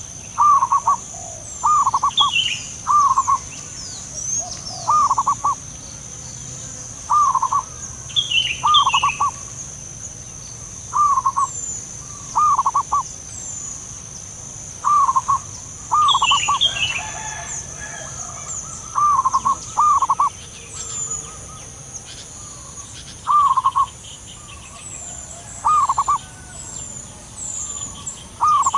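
Zebra doves cooing: short, clipped coo notes, singly or in quick twos and threes, repeated every second or two. Fainter high chirps from smaller birds and a steady high-pitched drone sit behind them.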